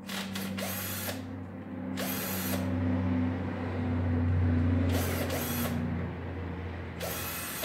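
Cordless drill-driver running steadily, unscrewing the screws of a chainsaw carburetor's cover. Its motor hum swells in the middle and is broken by four short harsh bursts.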